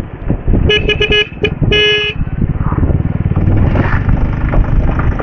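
A vehicle horn gives a quick run of short toots, then one longer toot about a second in, over the steady running and road rumble of a Bajaj Avenger 220 Cruise motorcycle's single-cylinder engine.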